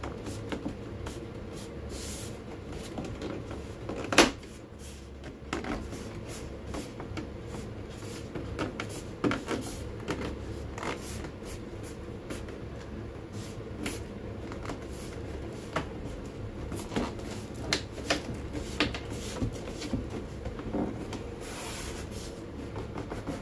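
Small scattered clicks, taps and rubbing as an inlay strip is slid along and pressed into the groove of an aluminium stair nosing by hand, with one sharper knock about four seconds in.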